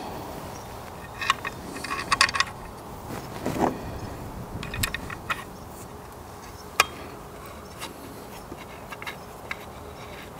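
Small metal clicks and clinks of action screws and an Allen wrench being handled while a rifle's barreled action is fitted into its chassis, scattered through the first half, with one sharper click later and a few light ticks near the end.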